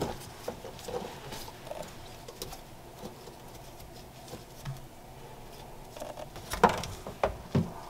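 Faint rustling and small clicks of a gloved hand working around an engine in a jet ski hull, fitting an oil injection hose, with a few sharper clicks near the end.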